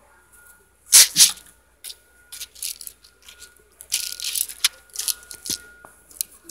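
Handling noise from a phone being moved and covered: a run of rustling, scraping crackles with no words, loudest about a second in and again around four seconds, over a faint steady high tone.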